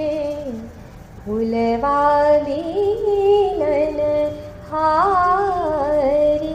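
A woman singing a Hindi devotional song in slow, ornamented phrases with long held notes, a short pause about a second in.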